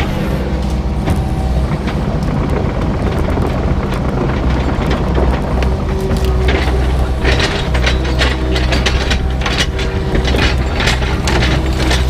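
Excavator's diesel engine running steadily, with a clatter of metal clicks and clanks that grows denser and sharper about halfway in.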